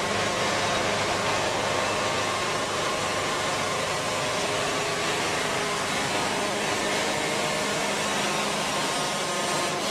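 Wood-Mizer LT70 band sawmill running steadily as its band blade saws a poplar log: a dense, even noise with a faint hum beneath it and no pauses.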